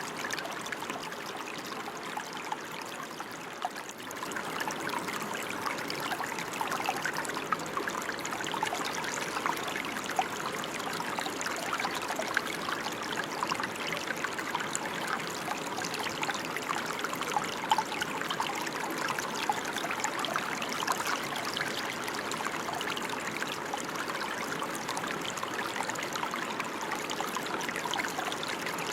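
Steady rain falling, a dense, even hiss of many small drops.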